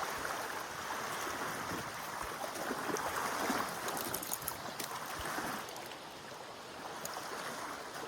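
Stream water rushing steadily, with a few small clicks and knocks. The rush eases off about two-thirds of the way through.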